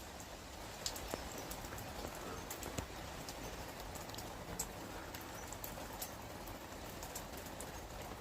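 Faint scattered clicks and rustles of an animal rooting and feeding in the ground, over quiet outdoor ambience.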